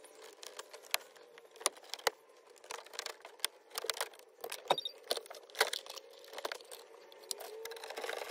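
Irregular small clicks, taps and rattles of a hand tool and hard plastic interior trim being worked at a car's centre console, the sharpest knocks a second or so apart.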